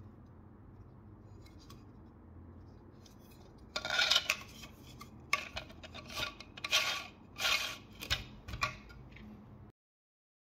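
3D-printed PLA motor parts handled by hand: plastic rubbing and scraping in about seven short bursts starting about four seconds in, until the sound cuts off near the end.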